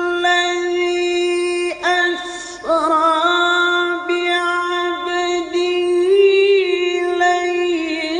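A male qari reciting the Quran in the melodic tilawah style, holding long ornamented notes. He takes a short breath about two seconds in, and his pitch lifts a little about six seconds in before settling again.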